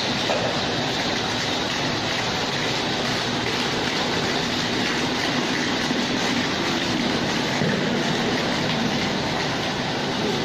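Construction machinery running steadily, with a dense, even rattle over a low hum.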